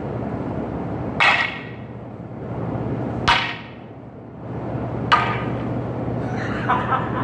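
Wooden half staffs clashing in sparring: three sharp, ringing clacks about two seconds apart, then a couple of lighter knocks near the end.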